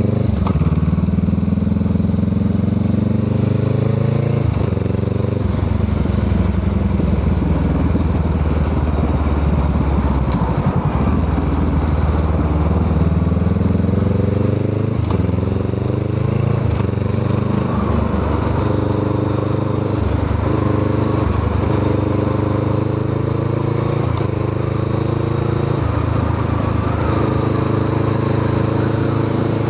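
Honda Rebel 500's parallel-twin engine through a Musarri aftermarket exhaust muffler, ridden under way: the revs climb and drop sharply again and again as it shifts through the gears, then hold steady near the end.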